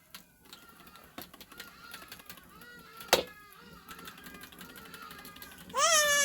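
A young child whimpering softly, then breaking into a loud, wavering cry near the end. A single sharp knock sounds about three seconds in.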